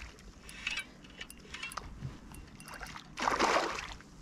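A hooked dusky flathead thrashing at the water's surface, with one loud splash about three seconds in.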